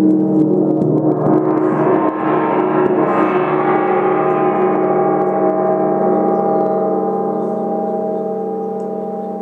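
Hand-hammered flat gong struck with a soft-headed mallet, ringing with many overlapping tones. Its sound swells into a brighter shimmer over the first two or three seconds, then rings on with a slow, steady fade.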